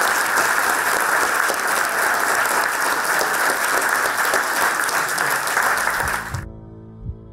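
Audience applauding, a dense steady clapping that fades and cuts off about six seconds in. Soft ambient music with held notes follows near the end.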